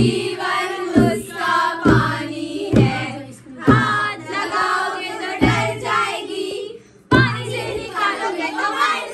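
Women singing a wedding folk song to a dholak (two-headed barrel drum), its deep bass stroke falling about once a second under the voices. The singing and drumming drop out briefly about seven seconds in, then pick up again.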